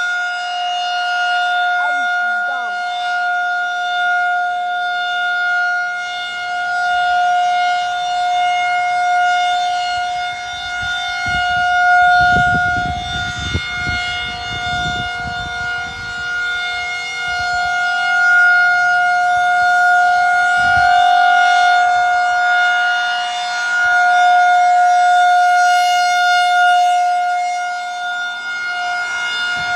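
Federal Signal 2001 electromechanical outdoor warning siren holding a steady single-tone full-alert wail, swelling and fading slightly in loudness, heard from inside a car. A few low rumbling thumps come partway through.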